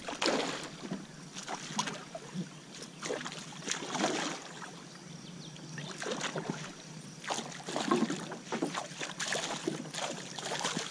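A hooked giant snakehead thrashing at the surface, making irregular splashes and water sloshing.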